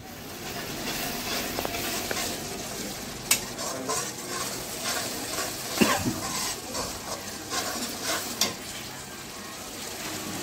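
Spiced masala paste sizzling in a kadhai while a perforated steel spoon stirs and scrapes through it. Several sharp clinks of the spoon against the pan stand out, the loudest about six seconds in.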